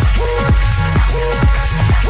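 Minimal techno music with a steady beat about twice a second and a short synth note repeating over it.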